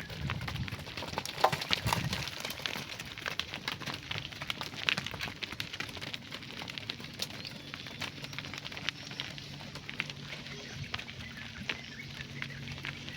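Cattle walking: an irregular patter of hooves crackling and clicking on dry ground.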